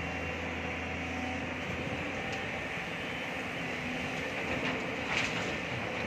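Diesel engine and hydraulics of a large crawler excavator running under load as it swings its loaded bucket over to a dump truck; the steady engine hum changes about a second and a half in, and there is a brief clatter about five seconds in.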